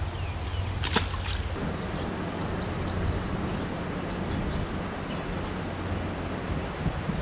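A brief splash and knock about a second in, as a fish is dropped from a landing net into the water, over a steady rushing background.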